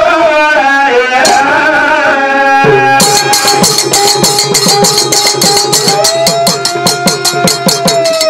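Banjara devotional bhajan: male voices singing, joined about three seconds in by fast, steady drumming and ringing hand cymbals under a long held note.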